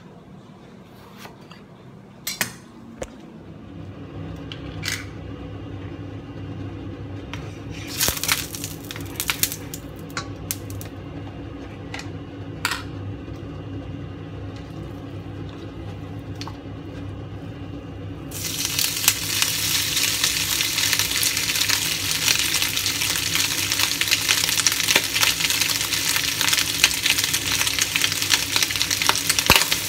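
Scattered clicks and knocks of kitchen utensils and cookware over a steady low hum, then, about two-thirds of the way through, minced meat starts sizzling loudly in a hot, lightly oiled wok, and the sizzle keeps on.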